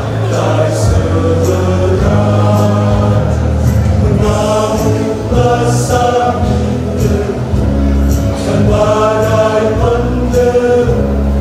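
Church choir singing a hymn-like song, over sustained low notes from an instrumental accompaniment that change every second or two.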